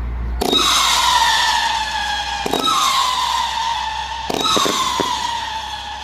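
Pyro Crybaby consumer firework firing whistling shots: three shrill whistles start about two seconds apart, each opening with a sharp launch crack and sliding slowly downward in pitch, with scattered pops in between.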